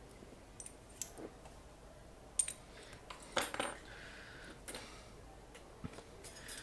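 Small metal laptop display hinges clinking and tapping as they are handled and put down, a few scattered light clicks.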